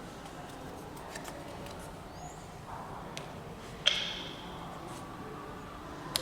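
Lift chime dinging once about four seconds in, its tone ringing away over about a second, over a steady low hum of lift and building machinery.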